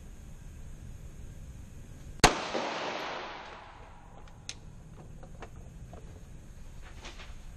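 A single 9mm pistol shot about two seconds in, followed by a long echo that dies away over a second or so under the range's roof.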